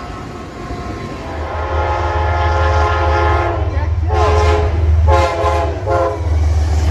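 Locomotive air horn sounding a long blast and then two short blasts, over the low rumble of the locomotive's diesel engine passing close by.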